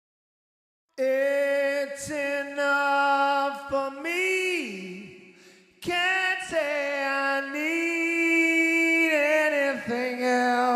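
Wordless unaccompanied singing: a voice holds long notes and slides between pitches, with short breaks between phrases, starting after about a second of silence.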